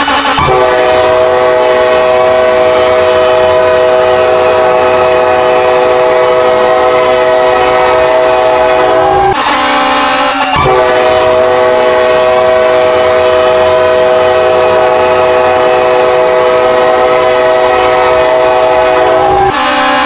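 K5LA five-chime train horn blowing a long, steady multi-note chord. It breaks off for about a second near the middle, then sounds again. A siren wails up and down beneath it and is heard most plainly in the break.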